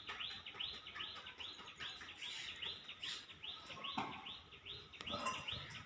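A bird chirping over and over, a quick rising-and-falling chirp about two or three times a second, steady and fairly faint. A soft knock comes about four seconds in.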